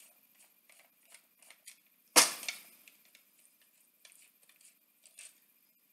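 Small plastic clicks and taps from a clear plastic project box being handled and opened, with one sharp snap about two seconds in.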